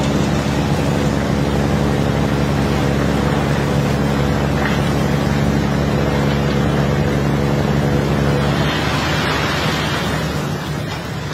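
Engine running steadily with a constant drone. About nine seconds in, the drone falls back under a rush of noise as loosened iron ore slides down the face of the pile.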